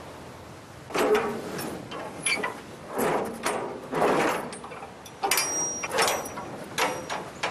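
Steel shipping-container door hardware being unlocked and worked: keys and lock rattling and the locking-bar handles clanking and scraping. It comes as a string of metallic knocks about once a second, starting about a second in.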